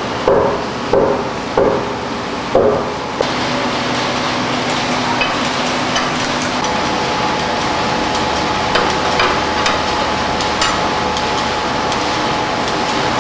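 Horizontal veneer slicing machine at work: a run of sharp knocks about every two-thirds of a second, each briefly ringing, gives way after about three seconds to steady machine noise with a steady hum and scattered light clicks.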